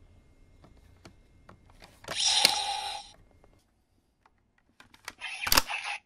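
Bandai CSM V Buckle toy transformation belt being handled: a few light plastic clicks, then about a second of electronic sound effect from its speaker, a hissy whoosh over a steady tone. Near the end comes a sharp click and another short burst of sound.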